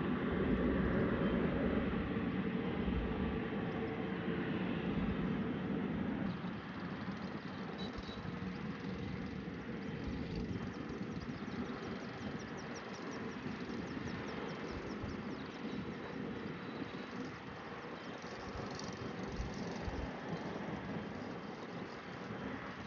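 Jet airliner engines, a steady rushing that is loudest for about the first six seconds, then drops a little and carries on more quietly.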